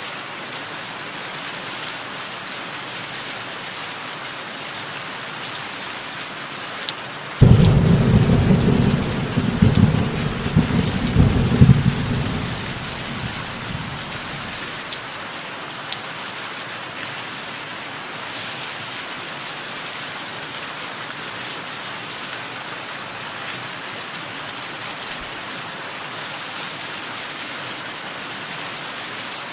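Steady rain falling, with small birds chirping in short high calls every second or two. A loud clap of thunder breaks about a quarter of the way in and rumbles for several seconds before fading.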